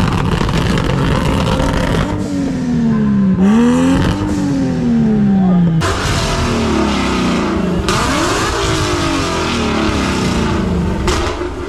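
Car engines revved hard against each other in a rev battle: repeated quick rises in engine pitch, each falling away slowly, about every two seconds. In the second half loud crackling from the exhaust joins the revving as flames shoot from a tailpipe.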